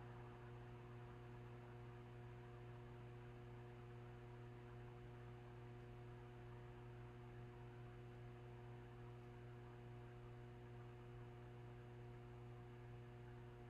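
Near silence: a faint, steady electrical hum and nothing else.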